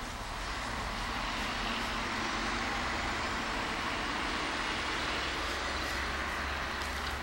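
DR class V100 (112/202) diesel-hydraulic locomotive approaching under power. Its engine runs as a steady din that grows slowly louder, with a faint whine rising in pitch.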